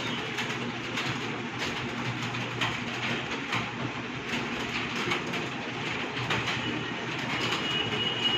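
Many computer keyboards clattering at once as a room of typists types steadily at speed, the keystrokes merging into a dense, continuous clacking over a low hum. A faint steady high tone comes in near the end.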